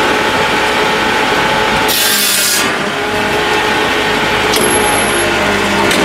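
Hakki Pilke OH60 firewood processor, driven by a Massey Ferguson 1020 tractor, running steadily while sawing and splitting slab wood into stovewood. About two seconds in there is a brief, louder hissing surge.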